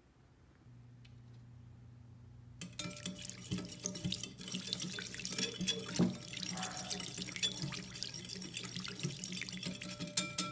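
Small wire whisk beating a liquid vinaigrette in a glass bowl: rapid wet sloshing with the wires clicking against the glass, starting about a quarter of the way in. A dog barks in the background near the end.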